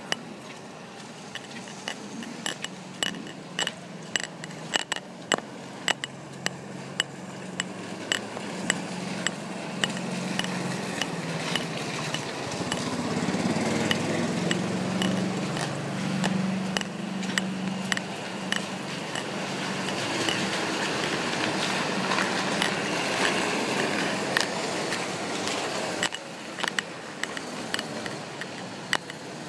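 A necklace pendant tapping irregularly against a phone held to the chest, the taps thickest in the first few seconds, over a steady hiss of rain. A low hum rises and fades in the middle.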